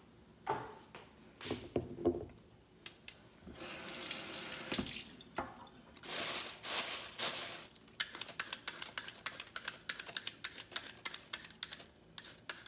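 Carrot being peeled with a Y-shaped vegetable peeler over a plastic bag at the kitchen sink: short scraping strokes, which come in a quick steady run in the second half. Two longer rushing sounds come in the middle.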